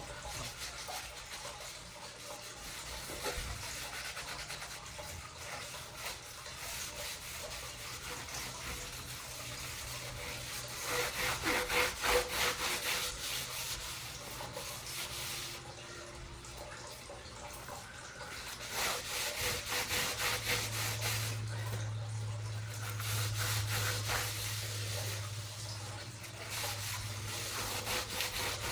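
A damp soapy cloth scrubbed back and forth over a copper fire extinguisher, a rubbing sound coming in bursts of quick strokes, strongest about halfway through.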